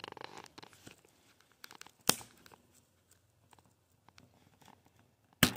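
A plastic pry tool scraping and clicking against the tablet's internal parts, with two sharp, loud snaps, one about two seconds in and one near the end.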